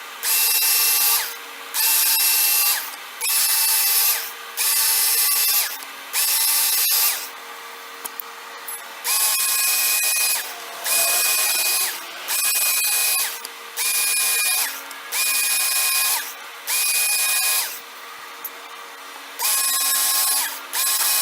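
Work Sharp Knife & Tool Sharpener's electric belt motor running in short passes of about a second each, spinning up and winding down every time, with a 6000-grit belt honing a kitchen knife edge. There are about a dozen passes, with two longer pauses: one about a third of the way in and one near the end.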